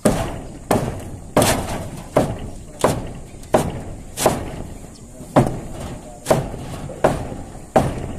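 Repeated heavy blows of a hand tool on the old wooden roof framing being knocked apart, about three blows every two seconds with a short pause in the middle, each hit ringing briefly.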